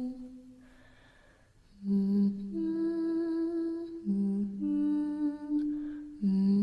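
A woman humming a simple lullaby-like tune: a held note fades out, a quiet breath follows, then the humming resumes in phrases that step from a low note up to a longer, higher one, repeated.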